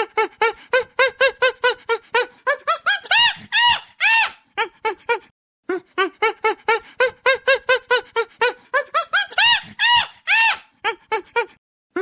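An animal's rapid, squeaky calls, about four or five short chirps a second, broken by a few longer cries that rise and fall. The run of calls stops briefly about five seconds in, then plays again in the same pattern.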